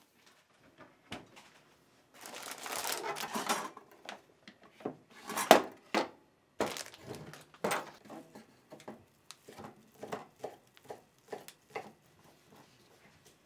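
Plastic bag crinkling, then a loud knock and a few clatters of kitchen things being handled. After that, a kitchen knife cuts on a wooden cutting board in a run of short, even strikes, about two or three a second.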